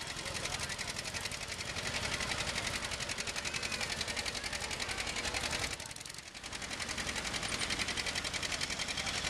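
John Deere 720's two-cylinder engine running with a rapid, even popping exhaust beat. It dips briefly about six seconds in, then picks back up.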